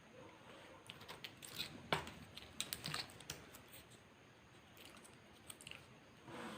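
Close-up eating sounds from a burger mukbang: a quick run of small clicks and crackles about one to three seconds in, then a few scattered ones.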